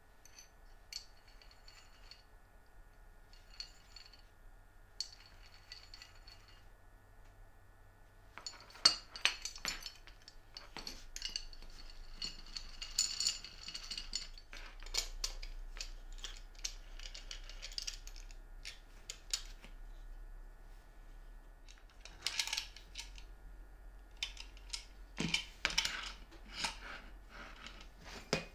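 Light metallic clicks, clinks and knocks of a metal corner clamp being handled and adjusted: its screw handles are turned and plywood pieces are set against its jaws. The sounds are faint for the first few seconds and become frequent from about a third of the way in.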